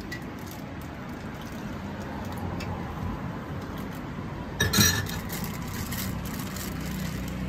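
Steady low rumble of street traffic, with one short, sharp metallic clink of a steel ladle against a pot about two-thirds of the way through.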